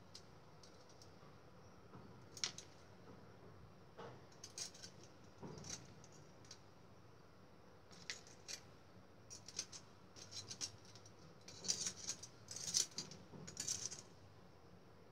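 Metal kitchen tongs clicking and tapping as fried cassava fritters are set down on a plastic plate. The light clicks come in scattered clusters, busiest and loudest in the second half.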